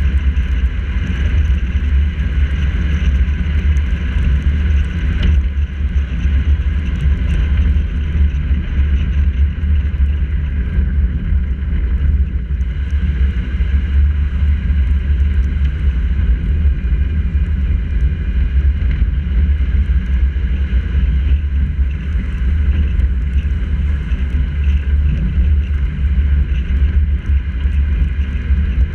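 Steady low rumble of wind and road noise from a car driving on a rain-wet road, picked up by a camera mounted on the hood, with a constant hiss above it.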